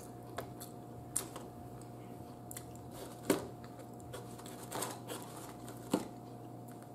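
Baked crab shell being broken and picked apart by hand: about five short, sharp cracks and snaps spread out, the loudest about three seconds in, over a faint steady hum.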